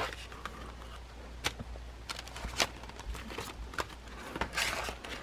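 Scattered light clicks and rustling of packaging and merchandise being handled, with a longer rustle near the end.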